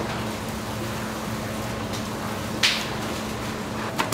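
Steady machine hum over a constant hiss, with one short sharp knock about two and a half seconds in and a click near the end.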